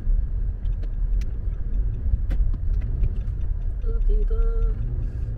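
Low, steady road and engine rumble heard inside a moving car's cabin, with a few faint clicks. Near the end, a short melody of held tones starts up.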